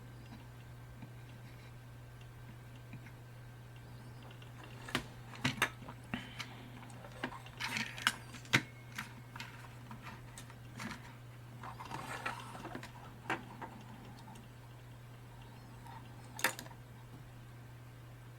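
Scattered light clicks and taps, with brief scraping, as resistor joints on a small clock circuit board are resoldered, over a steady low hum.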